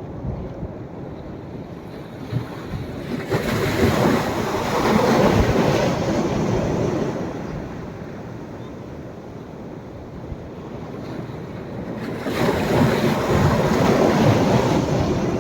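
Sea waves breaking on a sandy beach: a steady wash of surf with two louder surges, one starting about three seconds in and another about twelve seconds in, each swelling and fading over a few seconds.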